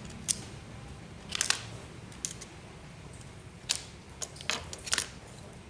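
Scattered light clicks and scrapes of small metal parts being handled while a threaded air-filter fitting is worked on, about half a dozen short sounds spread over a few seconds, over a low background hum.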